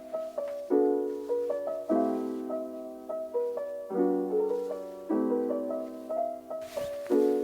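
Background piano music: soft sustained chords, a new chord struck about every second and left to fade.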